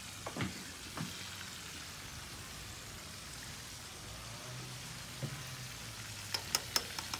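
Fish frying in hot oil, a steady sizzle, with a few sharp clicks near the end.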